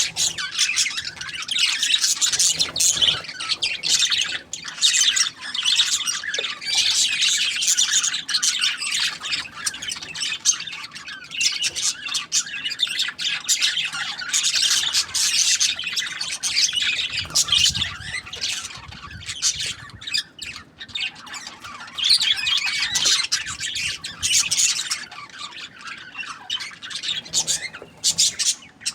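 Budgerigars chattering and chirping, many quick overlapping high calls without a break.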